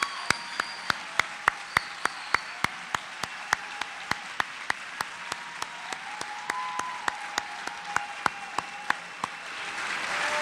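Audience applauding, with one nearby person's claps standing out at about three a second. The applause swells near the end.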